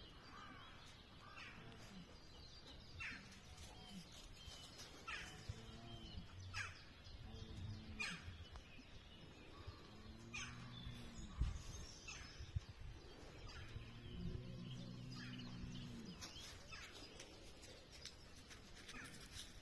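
Faint countryside birdsong: short bird calls repeat every second or so, with a few longer low tones in the middle and a single thump a little past halfway.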